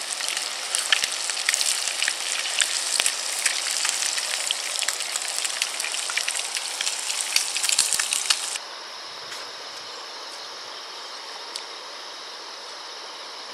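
Eel-tail catfish fillets frying in hot oil in a small pan on campfire coals: a dense, crackling sizzle with sharp spits and pops. A little past halfway it cuts off suddenly to a quieter steady night background of insects trilling.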